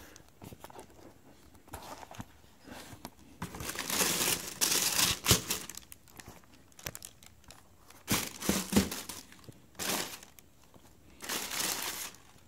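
White tissue paper in a cardboard shoebox crinkling and rustling as it is handled, in four separate bursts, the longest and loudest about four to five seconds in.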